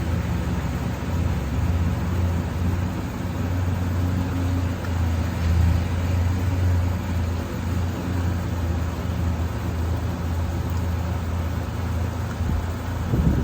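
A steady low hum from an engine or motor running, with a short louder burst near the end.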